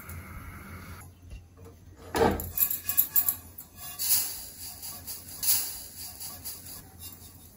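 Dry semolina (rava) poured into an empty stainless steel pan, the grains hissing and pattering on the metal. A brief loud scrape comes about two seconds in.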